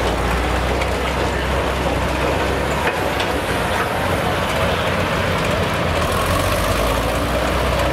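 Modified John Deere pulling tractor's engine idling after finishing a pull with the sled still hitched; a steady low drone that shifts slightly about three seconds in.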